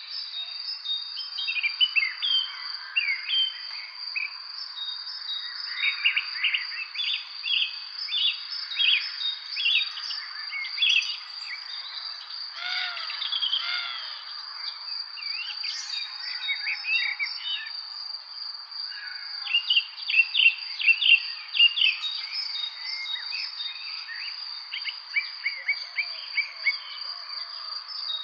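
Many songbirds chirping and calling in quick, short notes, busiest in bursts, over a continuous high-pitched insect trill.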